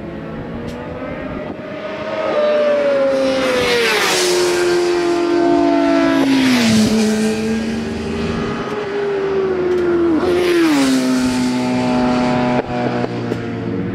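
Racing motorcycles going past at speed one after another, each engine note rising to a peak and then dropping sharply in pitch as the bike goes by; three such pass-bys, with a high engine whine throughout.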